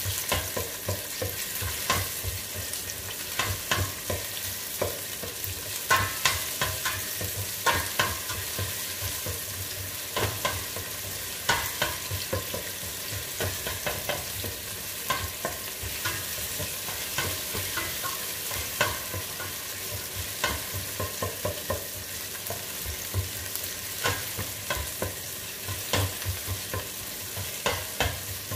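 Sliced onions sizzling in hot oil in a stainless steel pot, with a spatula scraping and knocking against the pot's bottom and sides as they are stirred. The knocks come irregularly, about once or twice a second, over a steady sizzle.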